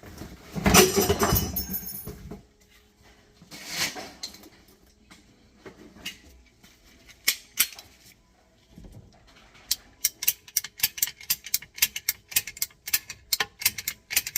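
Hand tools being handled: a clatter about a second in and another near four seconds, then a quick run of sharp metallic clicks through the last few seconds.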